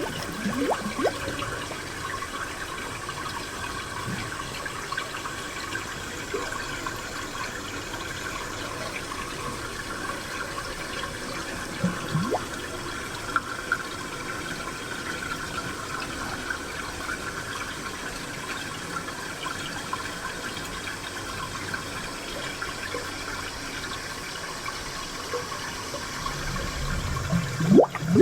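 Spring water flowing and trickling steadily, with occasional short bubbling plinks and a louder gurgle near the end.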